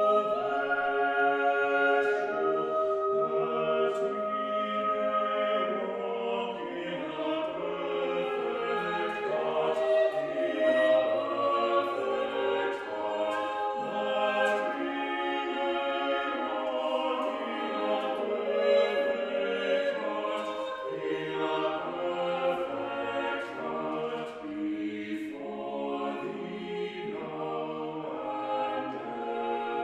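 Small mixed choir of about six voices singing a choral piece, with held notes that move from chord to chord.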